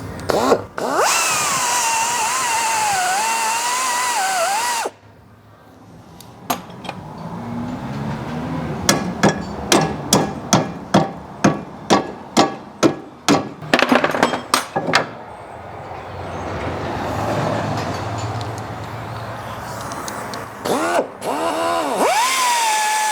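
A cut-off tool whines as it cuts metal, its pitch wavering under load, and stops abruptly about five seconds in. A hammer then strikes about a dozen times at roughly two blows a second. The cutting tool starts up again near the end.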